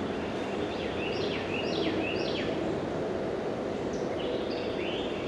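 A songbird singing a short series of quick down-slurred whistled notes about a second in, and a couple more near four seconds, over a steady hiss of outdoor background noise.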